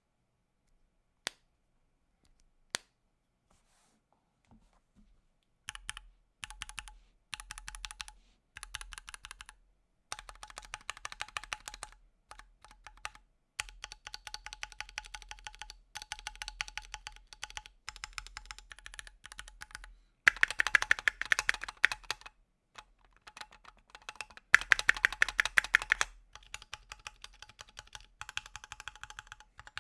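Typing on a Keychron Q2, an aluminium-cased 65% mechanical keyboard: two single key clicks, then from about six seconds in runs of rapid keystrokes with short pauses, the two fastest and loudest runs in the second half.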